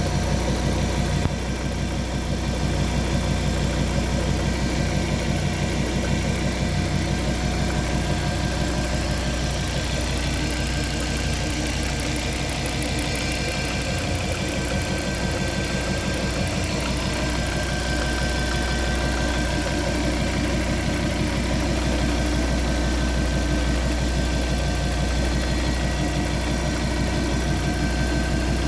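Fiat Coupé 20V Turbo's turbocharged five-cylinder engine idling steadily, carrying a strange noise of unknown cause.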